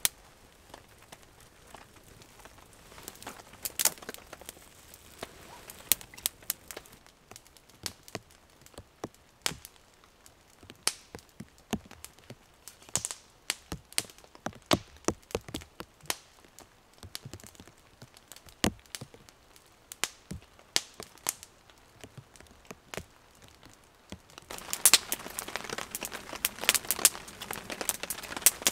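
Small campfire of split kindling crackling, with sharp irregular pops and snaps. About 24 seconds in, a louder, denser scraping with quick clicks begins as a knife shaves wood off a stick.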